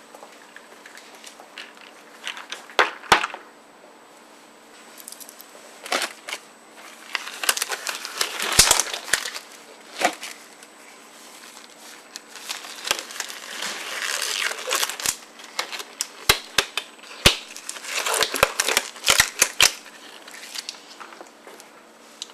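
Disposable lab gloves crinkling and snapping as they are pulled on, in several spells of rustling with sharp clicks between them.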